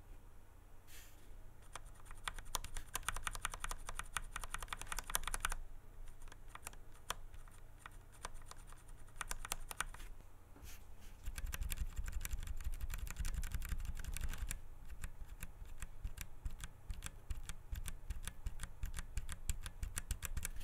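Keys on an Akko 3087 v2 Silent mechanical keyboard with Akko (Huano) Pink linear switches being typed and pressed. There is a fast run of soft clicks a couple of seconds in, then slower scattered presses. The reviewer finds these switches scratchy ('sandy'), like Cherry switches.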